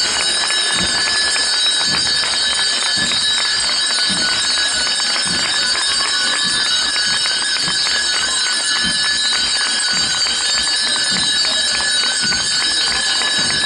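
Rain pattering steadily, a dense hiss of fine drops, with a dull low thud repeating a little more than once a second.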